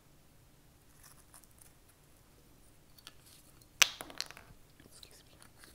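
A hot sauce bottle being shaken and handled over a plate of fried chicken and greens: faint soft ticks and rustles, then one sharp click about four seconds in, with a smaller click just after.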